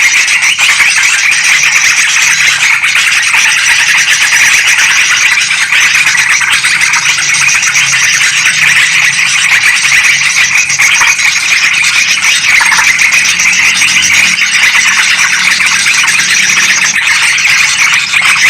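Yellow-vented bulbuls and sooty-headed bulbuls in a loud, agitated chattering chorus, calls packed into one continuous high-pitched wall with no pauses: a lure recording for trapping these birds.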